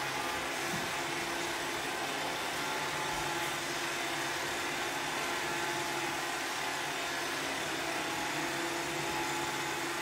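Roomba robot vacuum running: a steady whirr of its brushes and suction motor, with a steady whine over the hiss.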